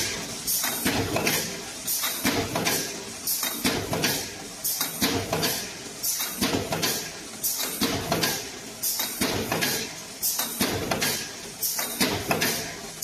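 Aluminum foil container making press running with its two-cavity mould, in a steady cycle about every two seconds. Each cycle brings sharp metal clacks and bursts of hiss.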